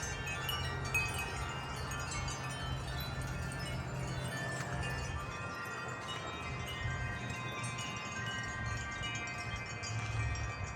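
Several wind chimes ringing continuously in gusty wind, many overlapping sustained metallic tones, over a low rumble of wind.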